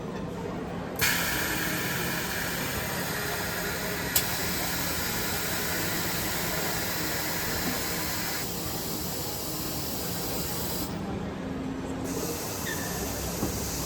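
Steady, hiss-like background din of a busy exhibition hall. Its tone changes abruptly several times, as the footage cuts between clips.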